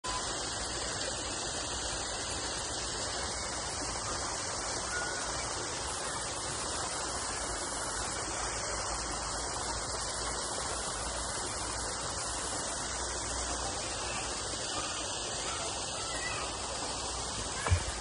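Steady rushing of a waterfall, an even hiss of falling water, with a single thump near the end.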